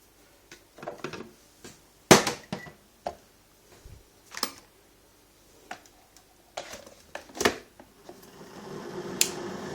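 A measuring spoon and a drip coffee maker's filter and lid being handled: irregular clicks and knocks, the loudest about two seconds in. From about eight seconds in, a steady even hiss rises and holds.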